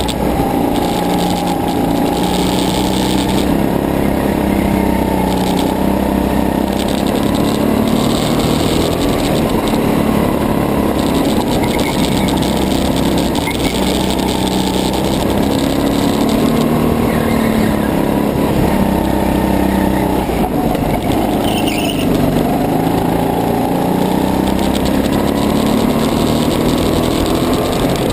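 Go-kart engine running hard under the driver, its pitch repeatedly rising and falling as it speeds up and slows down around the track.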